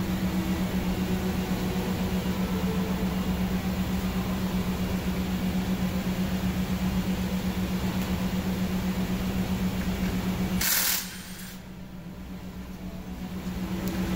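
A machine's steady low hum, pulsing slightly a few times a second, which cuts off abruptly about eleven seconds in with a short burst of noise, then fades back in near the end.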